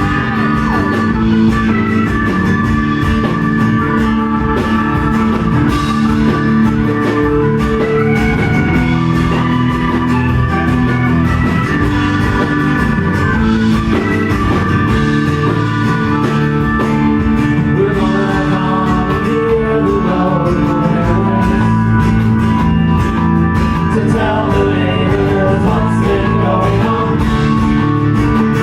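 Live band playing a rock song, with guitars and singing.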